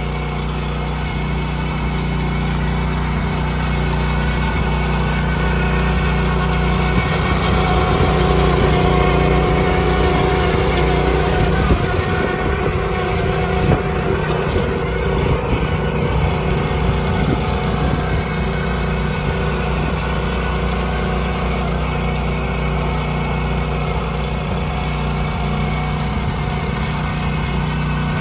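Small engine of a walk-behind mini tiller running steadily under load while its rotary tines churn dry soil. About halfway through there are two sharp knocks.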